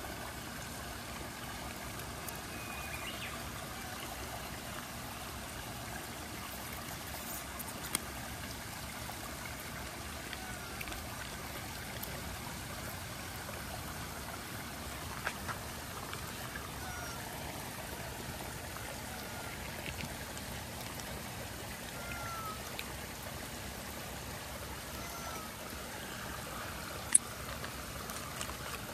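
Steady trickle of running water, with a few faint short chirps and light clicks, and one sharp click near the end.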